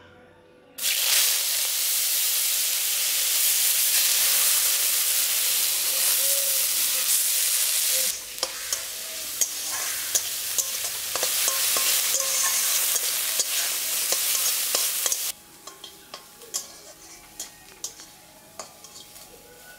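Chopped onion hitting hot oil in a metal kadai and sizzling loudly, starting suddenly about a second in. From about eight seconds a metal spatula scrapes and taps against the pan as the onions are stirred. The sizzle stops abruptly after about fifteen seconds, leaving the spatula clicking against the pan.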